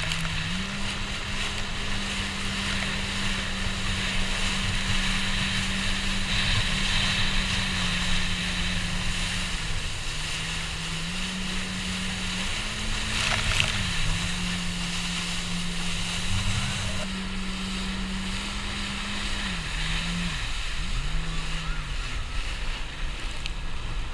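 Jet ski engine running at speed, its steady drone stepping up and down in pitch as the throttle changes and dipping briefly about twenty seconds in, over the constant rush of wind and spray.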